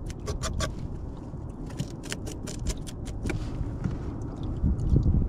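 Knife clicking and scraping against a fibreglass boat deck while cutting fish bait: a quick run of sharp clicks in the first few seconds, over a low rumble that swells near the end.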